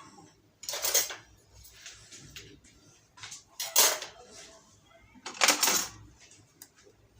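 Three short clattering bursts of kitchen items being handled, about two seconds apart.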